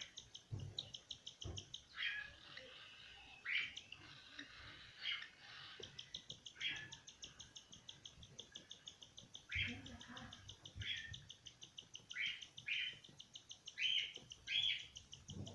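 Cockatiel chicks giving food-begging calls while an adult cockatiel feeds them: a fast, even train of high chirps, about eight a second, broken every second or so by louder calls.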